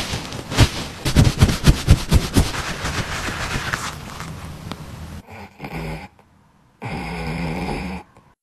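Brisk rubbing and patting of a cloth over a corgi's fur, a run of irregular scuffs and knocks. After about five seconds comes a sleeping corgi's snoring, two long snoring breaths with a short gap between them.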